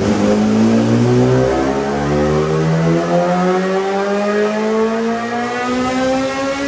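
Modified 2014 BMW S1000RR's inline-four engine, breathing through an Akrapovič full titanium exhaust, running at full throttle on a dynamometer. Its pitch rises smoothly and steadily as it pulls up through the revs in one long run.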